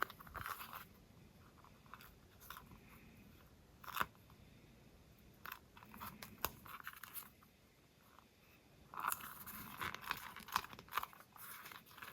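Hands handling a rubber RC crawler tire while applying self-adhesive bike tire patches: scattered faint clicks and crinkles of rubber and patch backing, with a denser crackly rustling about nine seconds in.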